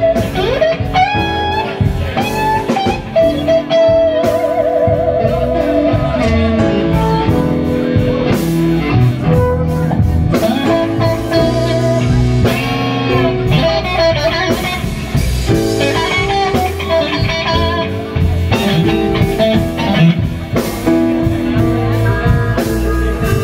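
Blues lead on a Stratocaster-style electric guitar, with notes bent upward and a note held with wide vibrato, over a band's bass and drums.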